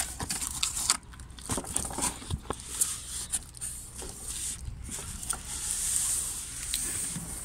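Plastic and cardboard packaging being handled, rustling and crackling in irregular clicks.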